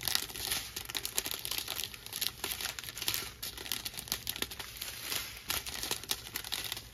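Plastic strip of sealed diamond-painting drill packets crinkling as it is handled, with many irregular small crackles.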